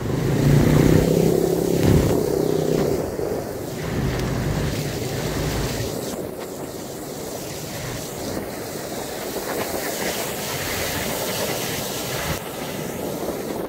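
Heavy rain and floodwater rushing along a flooded street, with a vehicle engine running loudly over the first few seconds. Near the end a minibus drives through the floodwater, its tyres sloshing and splashing.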